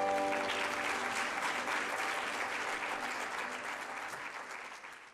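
Audience applauding as the last held note of the song dies away in the first second; the clapping fades out near the end.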